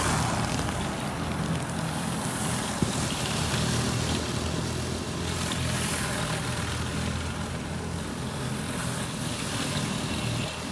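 Gas-engine pressure washer running steadily, with the hiss of its high-pressure spray swelling and fading as the jet moves over the surface.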